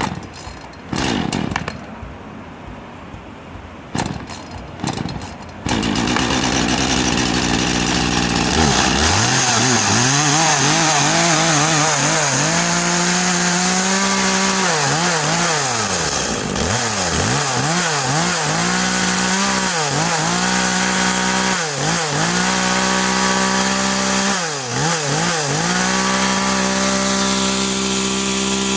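Makita MEA3600L 36 cc two-stroke chainsaw being pull-started: two short cord pulls, and the engine catches on the next pull about six seconds in. It idles briefly, then is revved up and held at high speed, with the throttle let off and opened again several times.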